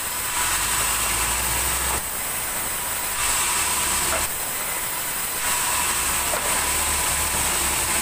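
Vertical band saw running with a steady high whine over a low motor hum, its blade cutting a log slab into boards. The sound shifts back and forth every second or two as the wood is pushed through and drawn back.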